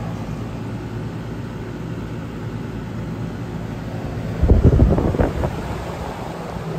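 Rheem R-410A central air conditioner condensing unit running steadily, its compressor and condenser fan making a low, even hum. About four and a half seconds in, a loud burst of low rumbling thumps hits the microphone for about a second.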